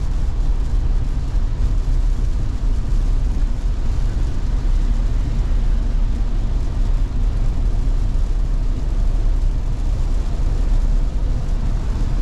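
Steady road and rain noise of a Tesla driving on a wet road in heavy rain: a dense low rumble with a hiss above it.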